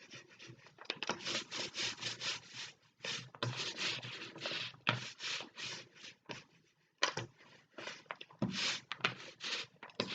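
Paint being worked back and forth over a cardboard board in quick rubbing strokes, about two to three a second, blending light and dark colours, with a brief pause about six seconds in.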